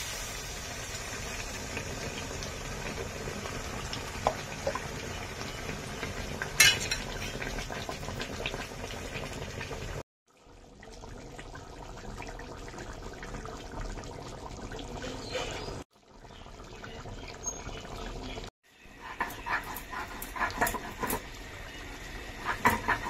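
Chicken and raw jackfruit curry in a pan after water has been added: a steady hiss of the liquid heating, later a run of little pops and ticks as it bubbles. The sound breaks off suddenly three times.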